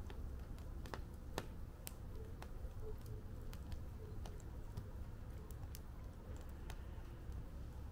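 Wood fire in a fire pit crackling: irregular sharp pops and snaps, several a second at times, over a low steady rumble.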